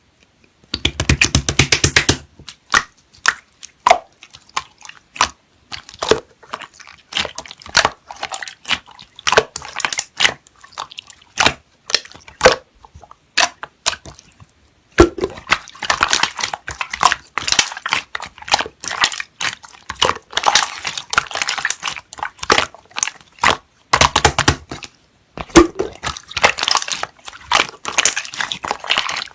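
Slime being squished and pressed by hand, making sticky popping and crackling clicks in quick runs, with the densest crackling in the second half.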